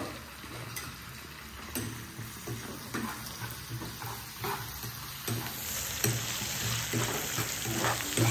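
Curry leaves, sliced shallots and green chillies sizzling in hot oil in a kadai, stirred with a steel spoon that scrapes and clicks against the pan. The sizzle grows louder after about five seconds.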